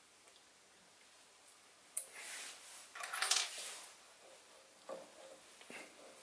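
Hand-handled metal parts of a compound slide lock on a Sieg SC3 mini lathe, being tightened and tried by hand. There is a sharp click about two seconds in, a brief scraping rattle about a second later, and two soft clicks near the end.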